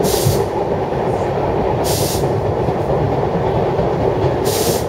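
Historic 1920s Berlin U-Bahn A1 train in motion on an elevated line, heard from inside the car: a loud, steady rumble of wheels on rails, with a brief high hiss about every two seconds.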